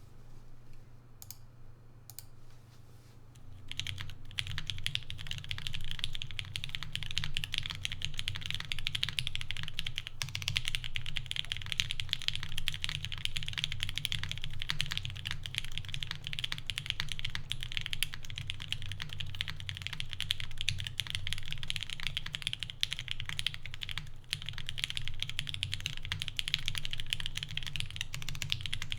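Fast, continuous typing on a TGR Jane V2 CE custom mechanical keyboard: NK Silk Black linear switches with Cherry MX tops, lubed and filmed, under GMK keycaps on an O-ring-mounted carbon-fibre plate with no foam. The keystrokes begin after a few seconds of quiet and run on as a dense stream of clacks.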